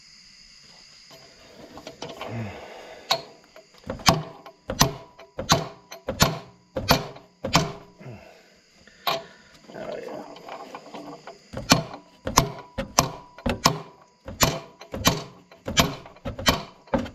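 Hammer blows on a driver seating a new armature bearing onto the shaft of a Lincoln Ranger 300DLX welder's generator, the bearing nearly flush. Sharp, short metallic strikes about one and a half a second, a pause near the middle, then a steady run of strikes again.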